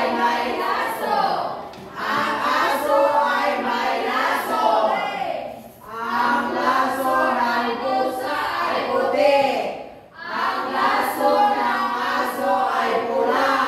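A group of young voices singing together in unison, in phrases about four seconds long with short breaks between them.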